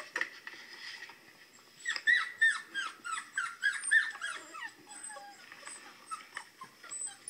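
Recorded puppies crying, played through a laptop speaker: a quick run of short, high, falling whimpers starting about two seconds in, then thinning out to a few scattered cries.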